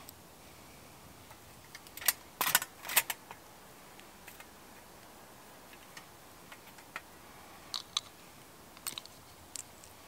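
Handling noise from a metal pan being set on a small folding tripod stand and other camp gear being moved: a cluster of loud clicks and knocks about two to three seconds in, then a few scattered lighter clicks.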